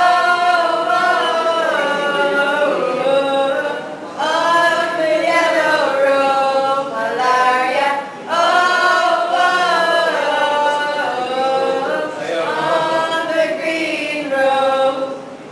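A small mixed group of women's and a man's voices singing together, with no instruments, in held phrases about four seconds long with short breaks between them; the singing stops near the end.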